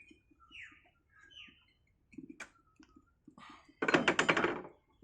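Short squeaks and clicks, then a loud rasping creak about four seconds in, from a wire being drawn through the join of a stingless-bee hive box to cut it into two halves.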